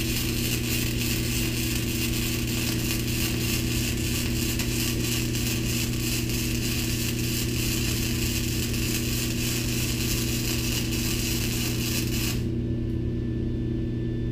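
Wire-feed (MIG) welder arc running on steel, a steady crackling hiss that cuts off suddenly about twelve seconds in. A steady low hum continues underneath throughout.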